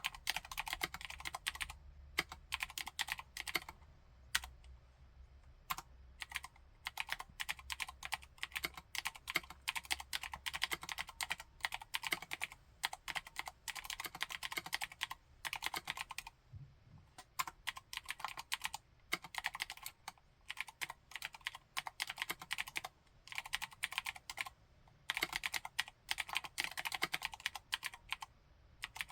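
Typing on a Vortex M0110 60% mechanical keyboard with Cherry MX White clicky switches: fast runs of sharp clicking keystrokes, broken by short pauses.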